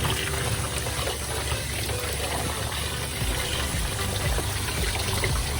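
Kitchen faucet running steadily, water splashing as a salmon is rinsed under it.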